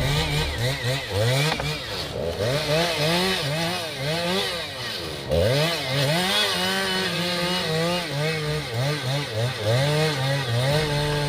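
Chainsaw engine running under load as it cuts a log, its pitch rising and falling over and over as the revs change, holding steadier in the second half.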